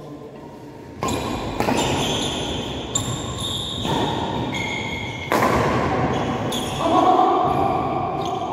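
Badminton rally in a large echoing hall: sharp racket-on-shuttlecock hits and the players' shoes on the court, with the sound jumping up suddenly about a second in and again past the halfway point.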